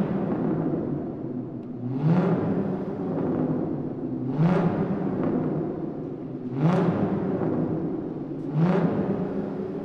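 Car engine revved repeatedly in a parking garage: four throttle blips about two seconds apart. Each rises in pitch and dies away with echo.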